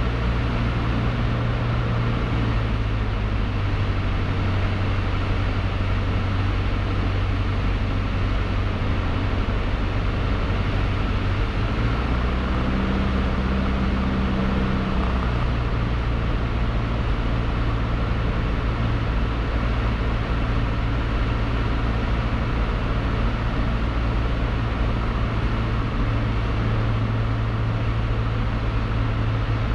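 Cessna 152's four-cylinder piston engine and propeller droning steadily in the cabin in flight. Its pitch drops a little about three seconds in, shifts again about twelve seconds in, and comes back up about sixteen seconds in.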